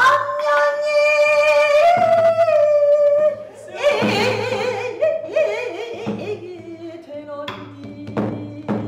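Female pansori singer singing long held, wavering notes with a strained, ornamented voice. A few strokes on the buk barrel drum keep time in the second half.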